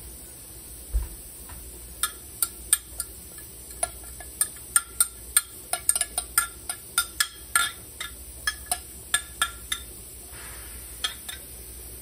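Metal spoon tapping and scraping inside a glass measuring cup, a quick run of sharp ringing clinks about three a second, knocking the last rosemary and garlic out of the cup.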